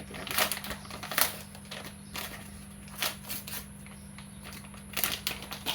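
Scattered clicks and light rustles from a small plastic video adapter and its packaging being handled, with a cluster of quicker clicks near the end, over a steady low hum.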